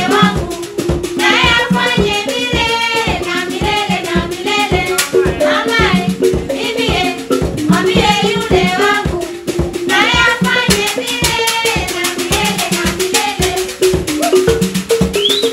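Live traditional African song and drumming: voices singing over hand drums and fast, steady percussion.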